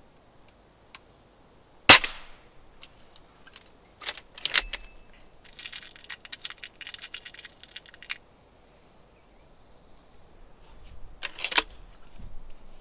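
Old leather-sealed B3 .177 spring-piston air rifle firing once with a sharp crack about two seconds in. Clicks and a quick run of rattling clicks follow as the underlever is worked to cock and load it, and a loud clack near the end as the action is closed.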